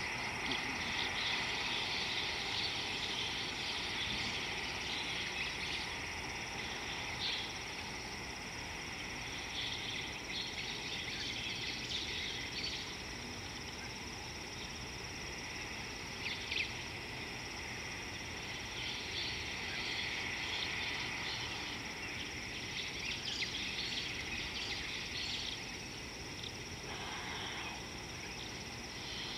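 Steady outdoor ambience dominated by an insect chorus: a continuous high-pitched buzz and trill with scattered short chirps.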